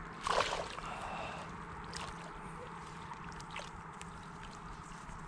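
Water splashing and sloshing in a shallow ditch as a carp is released from a landing net, with one louder splash about half a second in, then faint lapping over a steady hiss.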